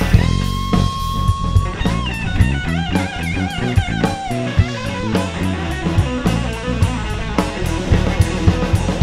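Live rock band playing an instrumental passage: a lead guitar holds one long note, then plays a run of bending, wavering notes over a steady drum kit and bass.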